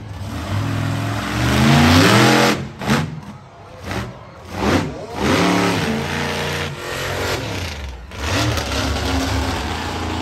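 Monster truck engine revving hard, its note climbing and falling. Partway through it is blipped in short bursts, dropping off sharply between them, then runs on under throttle.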